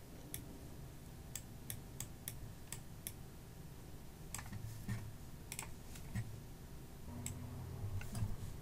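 Faint, sharp computer mouse button clicks, about two a second at first and then more scattered, as handwritten strokes are drawn with the mouse in a paint program. A low steady hum runs underneath.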